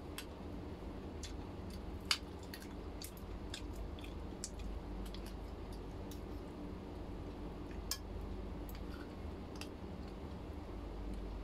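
Spoon and fork tapping and scraping on a plate while eating, with scattered light clicks and two sharper ones about two and eight seconds in, over a steady low hum.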